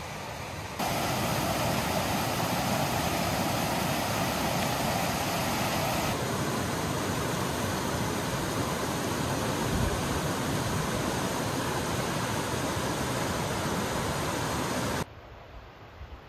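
Steady rush of running water. It cuts in about a second in, changes in tone about six seconds in, and stops abruptly near the end.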